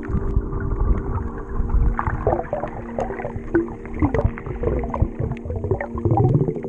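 Muffled underwater sound: water rushing and bubbling against the camera in a strong current, with small knocks and a steady low hum.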